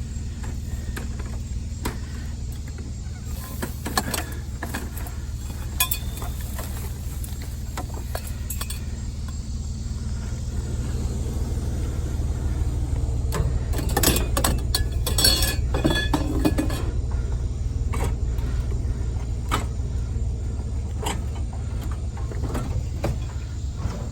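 A steady low engine rumble, with scattered metal clanks and clinks as pieces of scrap metal are handled and dropped, the busiest stretch a little past the middle.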